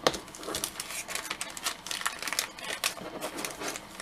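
Thin clear plastic bag crinkling and crackling in irregular runs as hands slide a small plastic action figure into it, with a sharp tap at the very start.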